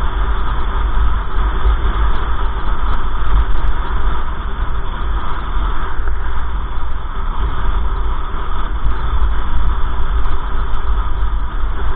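A car's road and engine noise heard from inside the cabin while driving: a steady, loud haze with a heavy low rumble.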